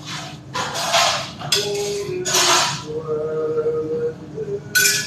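Dishes and utensils being handled in a commercial kitchen: four short bursts of clatter and scraping, the last near the end, with faint held tones that change pitch underneath.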